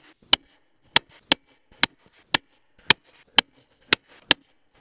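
Click-type torque wrench on a tractor's wheel lug nut giving about nine sharp metallic clicks, roughly two a second.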